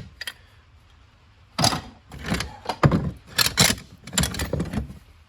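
Clattering and clanking of loose casters and hardware being rummaged through and pulled out, a run of loud knocks and rattles for about three seconds, starting about a second and a half in.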